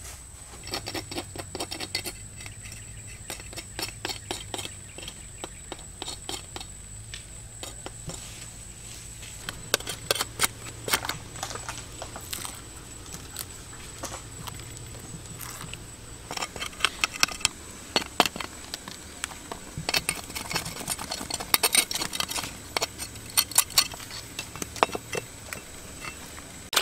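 Utensils clicking and clinking against bowls and plates during a meal, in irregular clusters of light strikes that come thickest in the second half.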